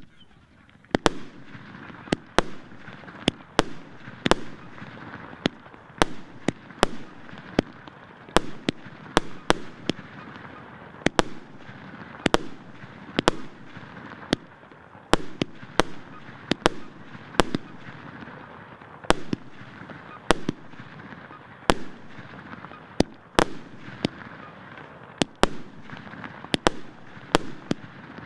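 Multi-shot consumer fireworks battery (the 'Vzryv emotsiy' SP045049 cake) firing salvo after salvo. Its shells burst in sharp bangs, about one and a half a second, with crackle and hiss between them.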